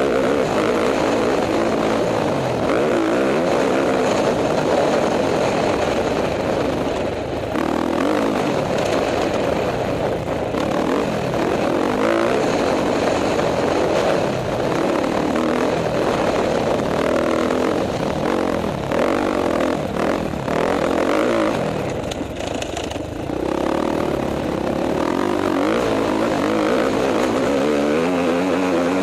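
KTM 450 XC-F four-stroke single-cylinder dirt bike engine running under hard riding, revving up and down with the throttle and dropping off briefly a few times as the rider shuts off and gets back on the gas.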